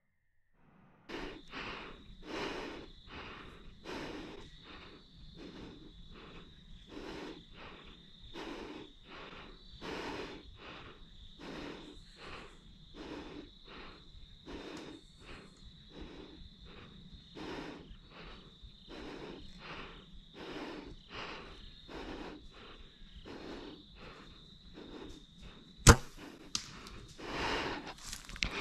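Compound bow being shot: a single sharp, loud snap of the string release near the end, followed by a smaller click. Before it, a steady run of soft rustling strokes about two a second.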